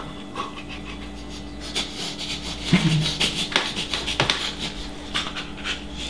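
Wet, messy chewing and smacking of a mouth stuffed with a saucy chicken wing, with irregular squelching clicks that grow busier from about two seconds in and a short muffled grunt near the middle.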